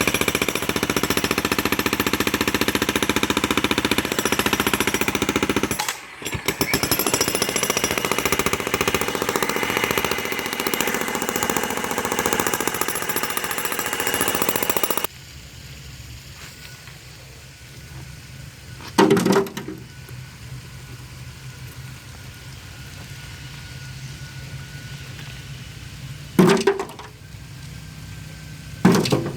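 Jackhammer breaking up concrete, running loud and rapid with a short break about six seconds in, then stopping abruptly about halfway. After it stops there is a low steady hum, with three loud knocks.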